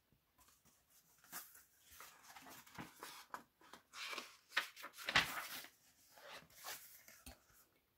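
Paper pages of a thin picture book being turned and handled: an irregular run of soft paper rustles and light knocks.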